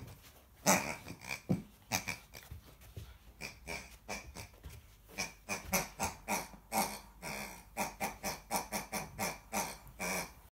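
A puppy chewing a pink rubber toy pig, which squeaks over and over in short bursts, coming faster and more regularly in the second half.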